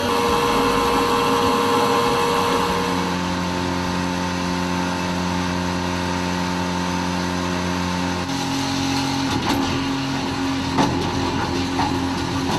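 Grundfos SEG grinder pump's electric motor running with a steady hum, its tone shifting about three seconds in and again about eight seconds in.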